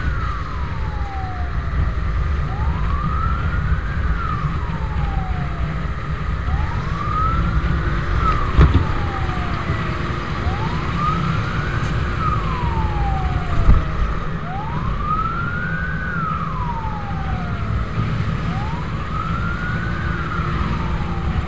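Fire truck's siren wailing, rising and falling slowly about once every four seconds, over a steady low rumble of wind and road noise from riding on a motorcycle. Two brief knocks break through partway along.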